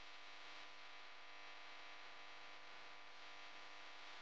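Noodle soup boiling in a pan: a faint, steady bubbling hiss.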